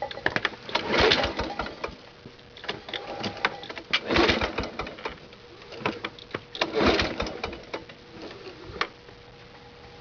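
A lawn mower's recoil starter being pulled three times, about three seconds apart. Each pull is a second-long burst of rattling and cranking as the cold engine turns over without catching.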